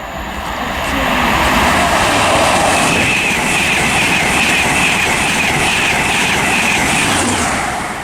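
LNER InterCity 225 train, a Class 91 electric locomotive with a Class 82 driving van trailer, passing through the station at speed. The wheel and rail noise builds over about a second, holds steady with a rhythmic clatter of wheels over the rail joints, and falls away near the end.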